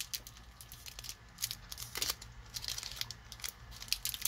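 Foil wrapper of a Magic: The Gathering booster pack crinkling and tearing as it is pulled open by hand, a run of irregular sharp crackles.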